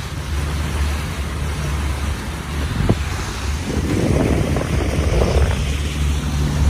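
Motorboat engine running steadily under way, with wind buffeting the microphone and water rushing past the hull. A louder rush comes about four seconds in.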